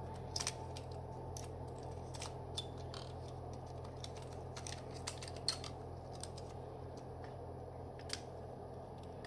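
Scattered light clicks and taps from an iPhone 3G being handled during a logic-board swap, over a steady low hum.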